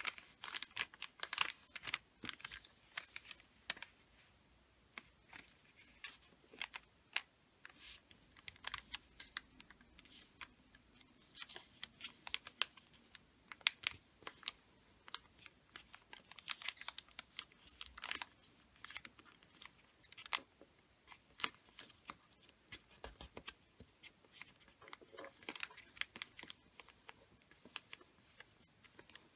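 Wrapping paper being folded and creased by hand on a tabletop: irregular crisp rustles and sharp crackles of paper as fingers press folds flat and tuck flaps behind.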